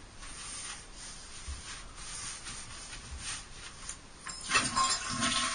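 Faint rubbing and rustling, then water starts rushing loudly about four seconds in.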